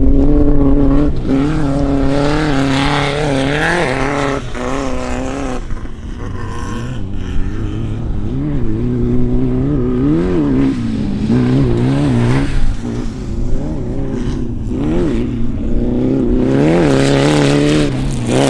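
Off-road race vehicle engine revving hard, its pitch rising and falling again and again, with a few brief sharp drops in level.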